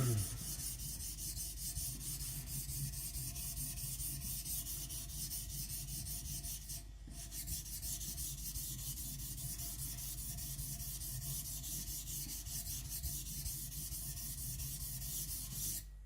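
Back of a kiridashi blade scraping back and forth flat on a wet Naniwa Professional 400-grit water stone, to flatten the back. The strokes are steady and rapid, with a brief break about seven seconds in.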